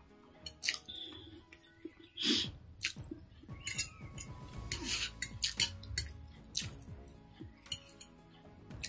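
A metal fork clinks and scrapes against a ceramic plate in a series of short, sharp clicks as chow mein noodles are twirled up and eaten, with chewing sounds. Soft background music plays underneath.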